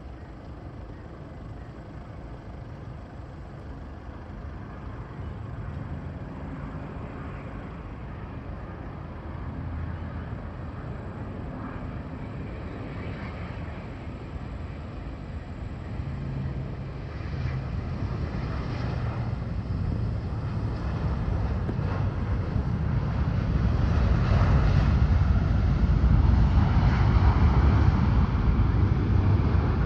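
Jet airliner coming in to land, its engine noise a steady rumble that grows louder as it approaches and is loudest near the end.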